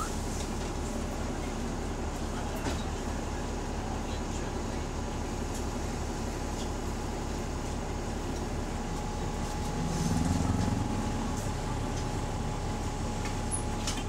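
Double-decker bus's diesel engine running under way, heard from inside the cabin, with a rapid, even low pulsing from a leaking exhaust and a thin steady whine above it. It swells louder briefly about ten seconds in.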